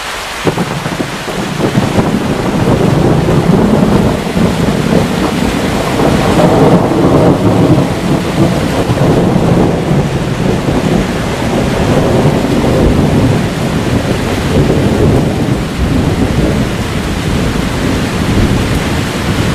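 Thunderstorm: heavy rain pouring with rolling thunder. It makes a dense, steady rush over a deep rumble that swells and eases several times.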